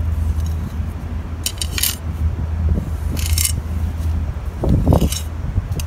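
Magnesium hand float scraping over wet SikaTop 123 Plus repair mortar as it is smoothed onto a concrete curb, three short strokes about 1.5 s apart, over a steady low hum.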